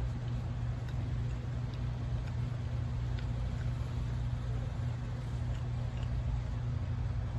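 Steady low hum of a running motor, unchanging throughout, with a few faint small ticks over it.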